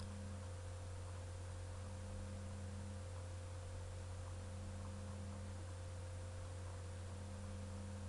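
Steady electrical hum with a higher thin tone above it. A lower tone switches on and off, sounding for about a second every two and a half seconds.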